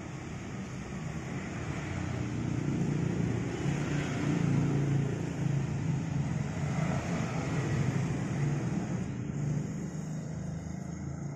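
A motor vehicle's engine running with a low drone, growing louder toward the middle and fading near the end.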